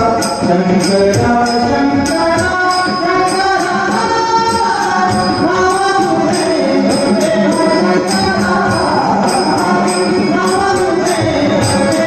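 Marathi abhang bhajan: a man sings in a trembling vibrato voice over a harmonium, with a steady beat of drum strokes and small hand cymbals.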